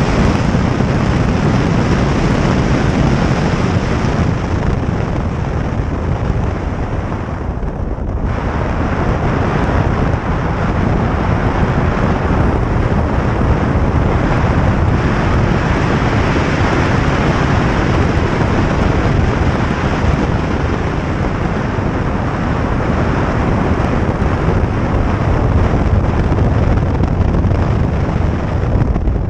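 Porsche 911 Carrera S flat-six engine under throttle at track speed, mixed with heavy wind buffeting on an outside-mounted camera's microphone. The noise drops briefly about eight seconds in.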